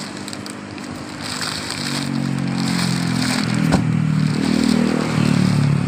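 Paper cement sacks scraping and sliding against one another and the truck bed as they are unloaded by hand, with a vehicle engine running and growing louder from about two seconds in. A single sharp knock about midway.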